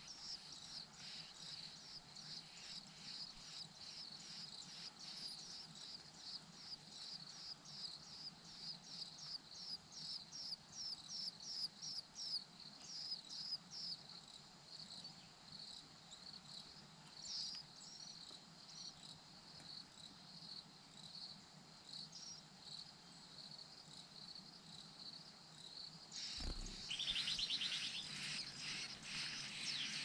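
A steady series of short, high chirps, about two a second, which fade out around halfway through. Near the end comes a knock, then a brief, rapid, buzzy chatter.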